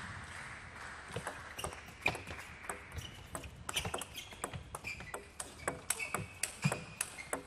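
Table tennis rally: the ball clicks sharply off the paddles and bounces on the table, many quick hits in succession starting about a second in.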